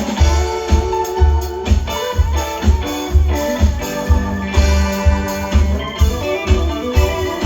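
Live rock band playing an instrumental passage: sustained chords over a steady kick-drum and bass pulse, about two beats a second.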